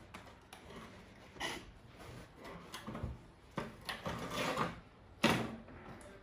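A metal cake tin being handled on a wire cooling rack: a few short scrapes and knocks as it is shifted and lifted, the sharpest knock about five seconds in.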